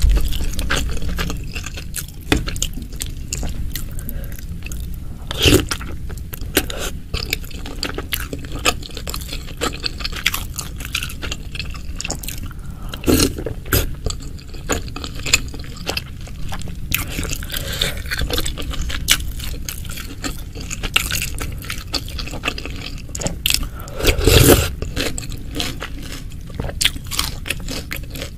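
Close-miked eating sounds: moist chewing and biting of meatballs in spicy broth, with wet liquid sounds and utensil scrapes, and a few louder bursts.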